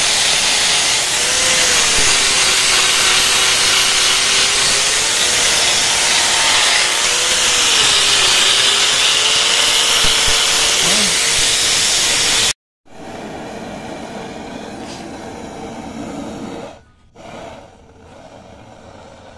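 Angle grinder with an abrasive disc grinding the welded steel bracket of a motorcycle exhaust pipe: a loud, steady grinding noise over the motor's whine, which dips and recovers in pitch as the disc is pressed into the metal. About two-thirds of the way through it cuts off abruptly and a much quieter steady hiss follows.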